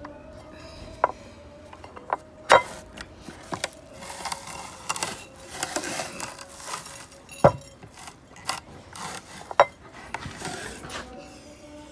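Hand-cranked cast-metal meat grinder and ground paddy rice being handled: irregular sharp clicks and knocks of metal and wood, a few loud, with stretches of gritty rustling from the husks in between, over a faint steady hum.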